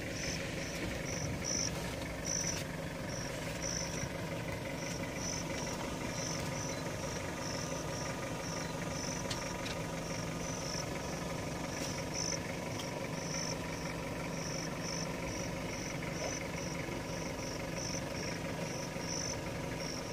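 An insect chirping steadily, about two high chirps a second, over the low, steady hum of an idling vehicle engine.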